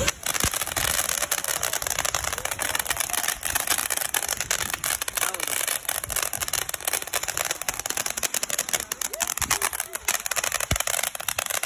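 Firecrackers going off in a rapid, dense crackle of many small pops, nearly continuous throughout, with voices underneath.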